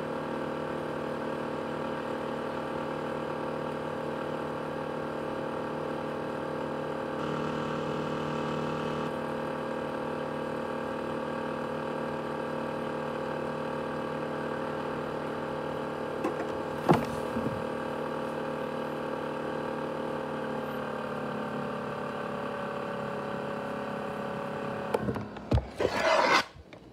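ASUS X543UA laptop's CPU cooling fan running fast with a steady whine of several stacked tones; about twenty seconds in its pitch sinks slightly as it slows a little. A single sharp click comes about seventeen seconds in, and handling knocks and rustles near the end.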